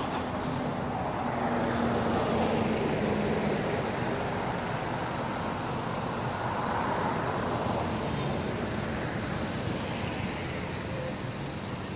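Passing road-traffic noise: a steady hiss that swells twice and fades, with a faint engine hum dropping slightly in pitch in the first few seconds.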